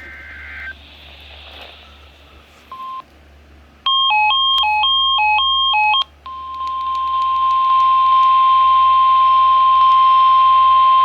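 NOAA Weather Radio emergency alert tones: the tail of a SAME data burst, a short beep, about two seconds of beeps alternating between two pitches, then from about six seconds in the single steady 1050 Hz warning alarm tone that signals a warning is about to be read.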